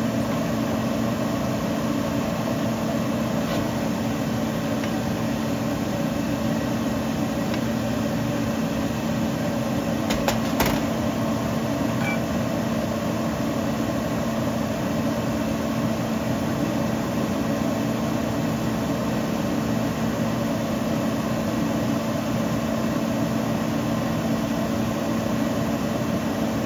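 Steady machine hum with a constant low tone, like a small motor or fan running, with two brief clicks about ten seconds in.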